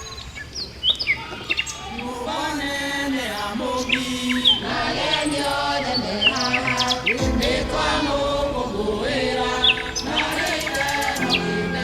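Birds chirping, joined after about a second and a half by a group of voices chanting together. A low, steady sound comes in about halfway through.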